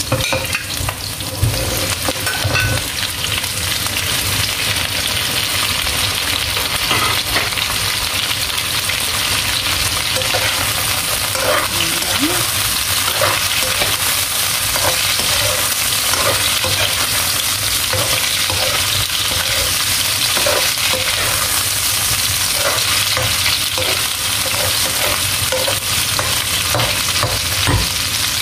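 Chicken pieces tipped into hot oil in a wok, then sizzling steadily while a spatula stirs them, with scattered scrapes and knocks against the pan.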